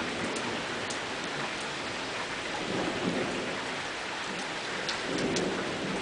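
Heavy rain falling steadily during a thunderstorm, with sharp ticks of single drops striking close by. A low rumble of thunder swells about three seconds in and again near the end.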